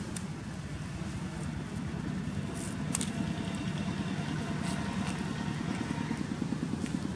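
A motor engine running steadily, a low rumble that grows slightly louder, with a sharp click about three seconds in.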